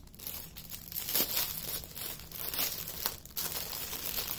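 A clear plastic bag of small tools crinkling and rustling in irregular bursts as it is opened and handled.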